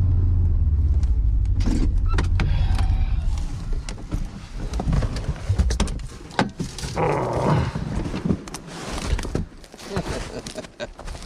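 A vehicle engine running steadily, dying away about three to four seconds in. Irregular knocks, clicks and rustling follow.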